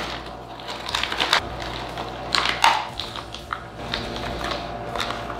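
Plastic gumball pouch crinkling as it is tipped up to the mouth and handled, with hard gumballs clicking and rattling inside it, in irregular crackly bursts.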